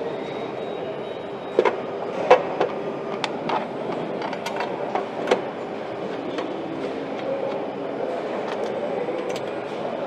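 Steady factory-floor hum with a scattering of sharp metallic clicks and knocks as parts are handled at an assembly station, the loudest a little over two seconds in.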